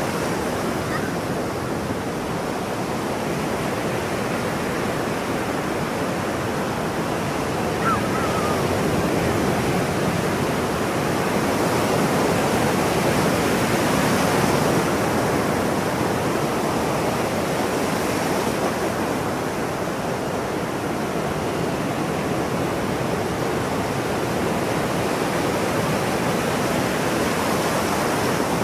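Ocean surf: a continuous wash of breaking waves, swelling slowly louder around the middle and easing off again.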